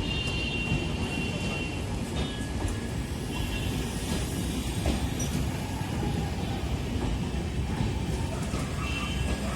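Passenger train rolling through the station: a steady rumble of coaches running on the track, with a few brief high-pitched squeals in the first couple of seconds and again near the end.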